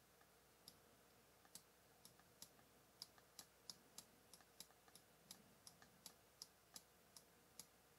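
Faint computer mouse clicks, about two a second at an uneven pace.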